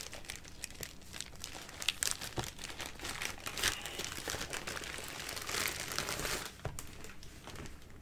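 Plastic poly mailer bag crinkling and rustling as a cardboard box is worked out of it: irregular crackles and rustles, busiest a little past the middle.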